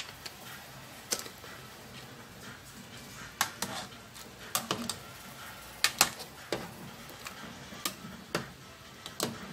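Metal ladle clinking against the side of a large aluminium stockpot while stirring pork leg in boiling broth: about a dozen sharp, irregularly spaced clinks, several close together in pairs.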